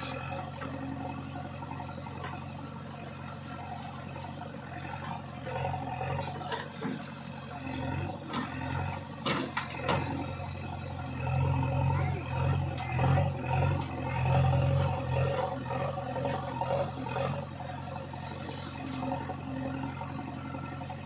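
JCB backhoe loader's diesel engine running steadily, then revving up in louder surges for several seconds in the middle, with a few sharp clanks just before.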